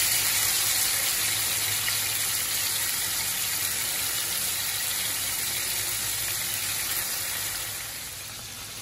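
Marinated seer fish steaks shallow-frying in hot oil in a pan, a steady sizzle that drops somewhat near the end.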